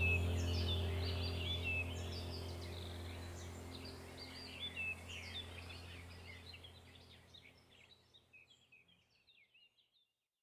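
Birds chirping over a steady low hum, the whole fading out gradually to silence near the end.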